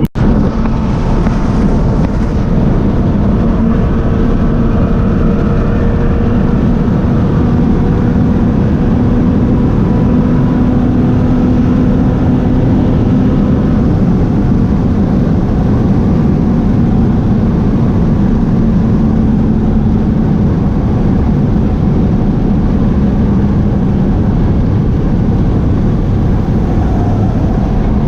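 Car driving at a steady speed: a continuous engine drone that drifts slightly in pitch, under heavy road and wind noise.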